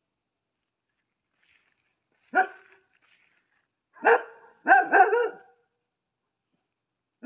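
Dogs barking: one bark about two seconds in, then a louder run of barks between about four and five and a half seconds.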